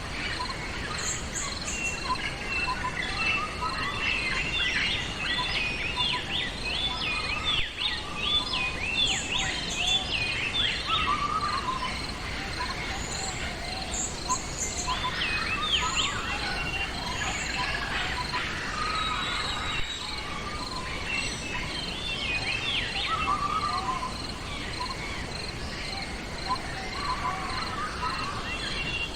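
A chorus of several birds singing and calling, with bursts of rapid trilled notes, over a steady, evenly pulsing insect chirp.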